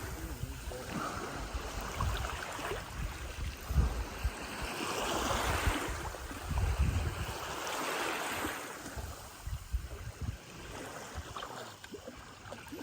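Lake waves washing in, swelling and fading every few seconds, with wind rumbling on the microphone.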